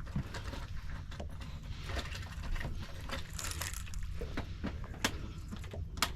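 Steady low rumble of wind and water around a small fishing boat, with scattered light clicks and knocks and one sharp click near the end.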